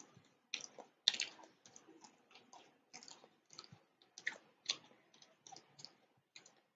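Faint, irregular small clicks, a few a second.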